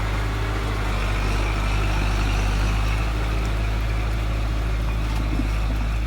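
Steady, loud low rumble of a running engine, constant in level and pitch.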